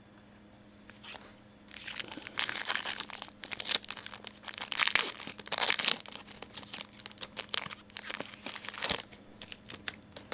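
Plastic wrapper of a Panini Prestige trading card pack being torn open and crinkled. It comes as irregular crackling for about seven seconds, after a quiet start.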